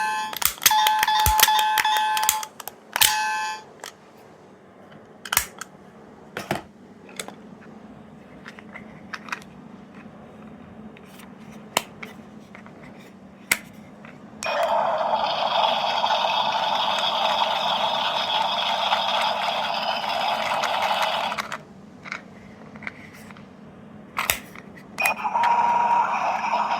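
Miniature electronic sound-effect capsule toys clicked on one after another. Button clicks, short electronic beep tones at the start, a steady hissing sound effect lasting about seven seconds in the middle, and another beeping tone near the end, all through a tiny speaker.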